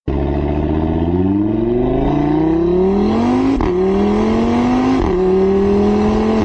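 Car engine accelerating hard through the gears: its pitch climbs steadily, drops sharply at an upshift about three and a half seconds in and again about five seconds in, then climbs again.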